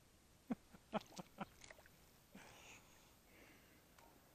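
Handling noise of light fishing tackle as a small redfin perch is landed from a kayak: five or six sharp, faint clicks and knocks in quick, irregular succession in the first two seconds, then a short soft hiss.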